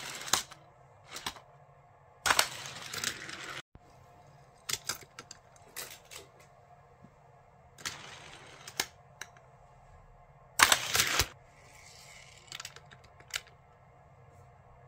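Die-cast toy cars on a plastic Hot Wheels launcher track: a series of sharp plastic clicks and snaps as cars are set in place and released, with a few short rattling runs of about a second as the wheels roll down the track.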